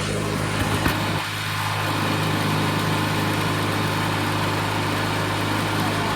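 1997 MTD Yard Machines riding lawnmower engine running steadily and loud, with a few short knocks in the first second.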